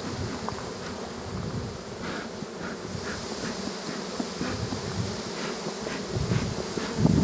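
Honey bees buzzing in a steady, dense drone around a crowded open hive, with a few faint light clicks through it.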